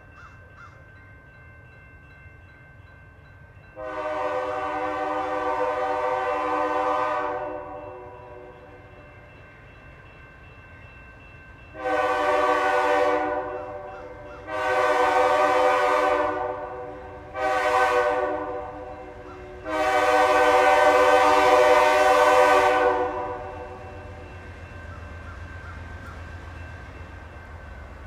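Diesel freight locomotive's multi-chime air horn: one long blast, then a long, long, short, long sequence, the standard signal for a grade crossing. A low engine rumble grows as the locomotive approaches near the end.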